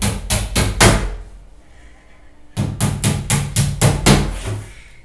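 Hammer blows in furniture assembly: two runs of quick, even strikes, about four or five a second. The first run is short and the second longer, with a pause of about a second and a half between them, and each strike has a dull thud beneath it.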